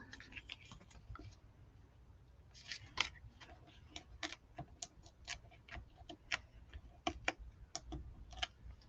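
Faint, irregular small clicks and taps of fingers working with paper craft pieces, picking foam adhesive dimensionals off their backing sheet and pressing them onto a cardstock layer.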